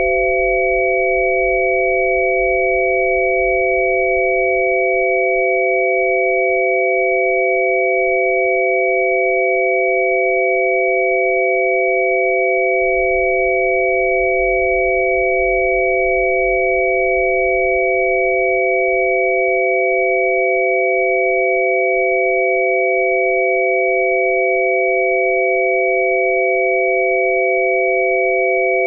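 Electronically generated rife-frequency healing tones: several steady pure tones, three low ones close together and one higher, held unchanged. A faint low rumble sits underneath and drops out twice.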